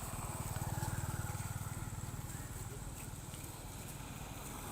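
A small engine running with an even, rapid pulse, loudest about a second in and then slowly fading.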